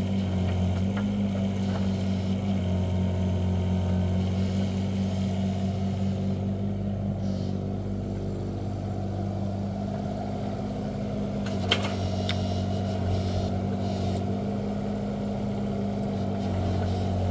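Komatsu mini excavator's diesel engine running steadily, with a slight change in its low note about a second in and again near the end. A single sharp knock about twelve seconds in.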